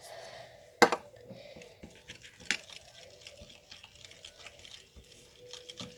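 Glue and violet colorant being stirred with a spoon in a small container: irregular small sticky clicks and scrapes, with a sharper click about a second in and another about two and a half seconds in.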